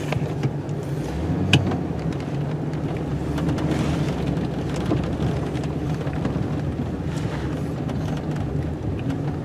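Snow-plow vehicle's engine idling steadily, with a single sharp click about one and a half seconds in.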